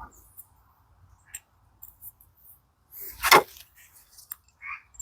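Metal gearbox parts being handled and test-fitted: scattered light clicks and one louder, short scraping clunk about three seconds in.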